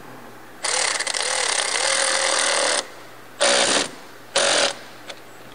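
Cordless 3/8-inch electric ratchet running for about two seconds, then two short bursts, as it tightens a hose clamp on a turbocharger compressor inlet.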